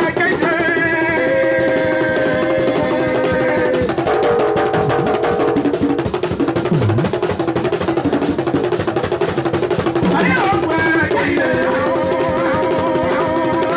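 Live Aloukou music: fast, busy drumming with long held melodic notes over it that pause about four seconds in and return near the end.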